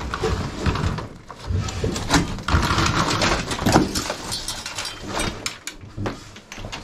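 Irregular knocks, clatter and scraping of junk and debris being handled and moved about during a house clean-out.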